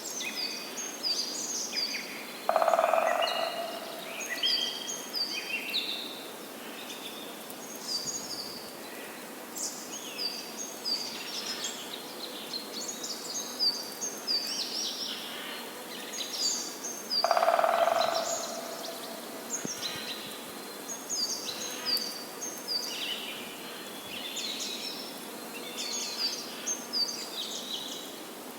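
Outdoor bird ambience: several small birds chirping and singing in short repeated phrases over a steady background hiss. Twice, about fifteen seconds apart, a louder, lower-pitched sound lasting about a second stands out.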